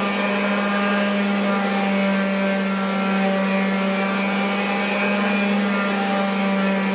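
Electric sander motor running steadily at a constant speed, a steady hum with a string of overtones.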